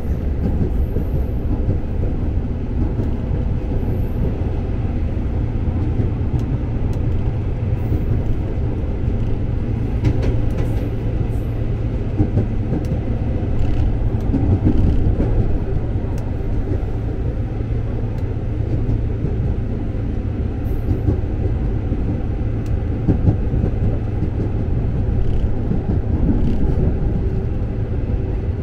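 KRL Commuter Line electric train running, heard from inside the carriage: a steady low rumble with occasional faint wheel clicks, swelling slightly about halfway through.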